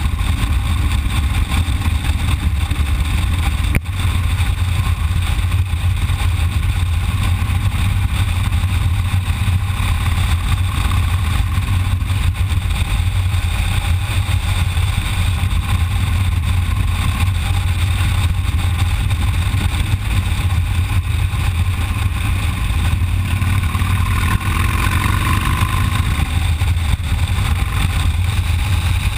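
Cruiser motorcycle running at a steady road speed, a continuous low rumble mixed with wind rush on the bike-mounted camera. About three-quarters of the way through, its pitch shifts briefly.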